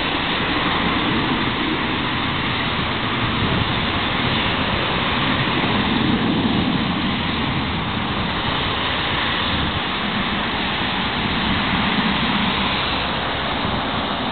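Steady jet engine noise from a Boeing 737 climbing away after takeoff and an airliner taxiing, mixed with cars passing on the road, swelling slightly about six and twelve seconds in.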